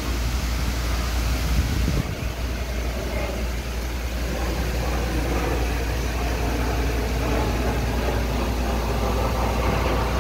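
Steady rush of many fountain water jets spraying, over a steady low rumble from a jet airliner flying low overhead.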